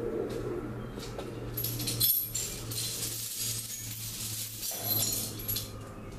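Metal clinking and rattling as hardware is handled, with a sharp knock about two seconds in and the rattle dying away about five seconds in. A steady low hum runs underneath.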